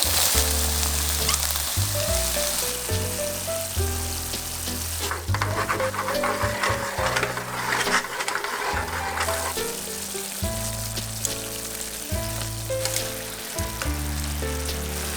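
Eggplant sizzling in a frying pan, with small clicks of a utensil now and then, under background music with held bass notes.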